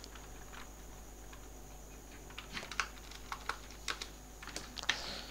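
Typing on a computer keyboard: a quiet pause, then a run of irregular keystrokes starting about halfway through.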